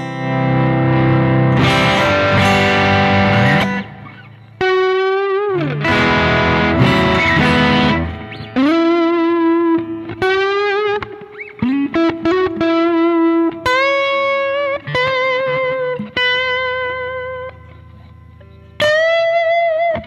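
Electric guitar, a Lyon by Washburn HSS, played through the Zoom G1X On's TS Drive overdrive, a copy of the Ibanez Tube Screamer TS-808. It plays overdriven chords for about the first eight seconds, then single-note lead phrases with string bends and vibrato.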